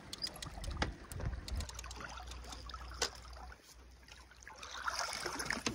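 Water splashing and trickling as a CTDO sensor probe on a fishing line is dragged at the surface beside a sailboat's hull, with scattered sharp clicks and a denser burst of splashing near the end.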